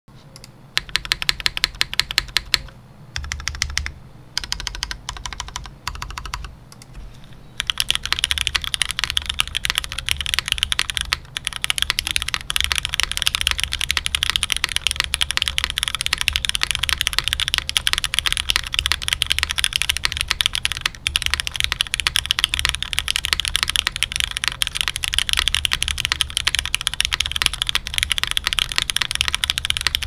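Custom mechanical keyboard with Cherry MX Black linear switches on a full aluminium plate, GMK keycaps and no foam, being typed on. A few short bursts of keystrokes with pauses between them, then fast continuous typing from about eight seconds in.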